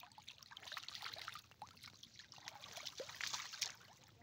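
Small splashes and trickling in shallow muddy water as a stranded fish flaps about, with a run of louder splashes about three seconds in.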